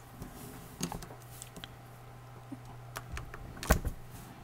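A few light clicks and taps of a long steel blade against a gridded cutting mat while trimming a strip of green stuff putty, the loudest a little before the end, over a steady low hum.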